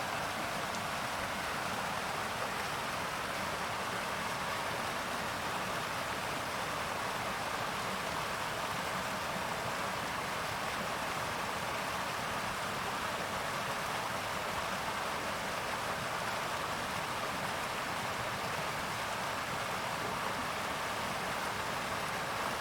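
River water flowing in a steady, even rush, with no changes.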